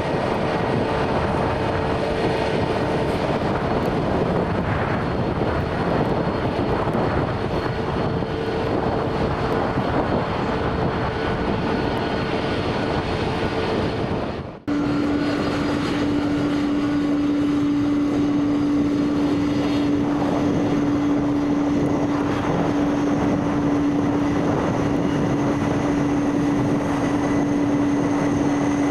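Jet engines of a British Airways Airbus A321neo running steadily: a dense rush with a held hum. About halfway through the sound drops out for a moment and comes back with a lower held hum.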